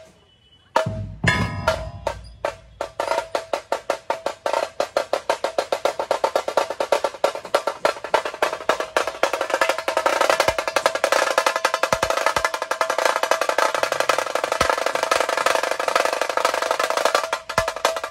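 Dhol-tasha troupe playing: a heavy dhol stroke about a second in, then the tashas' sharp stick strokes, spaced at first, speed up into a fast continuous roll with a ringing tone. The roll drops out briefly near the end and comes back.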